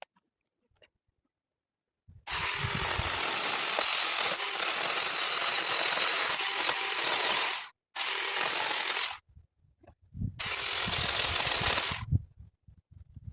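A handheld garden power tool, hedge trimmer or mini chainsaw, running in three bursts: a long one of about five seconds, then two short ones, each starting and stopping abruptly.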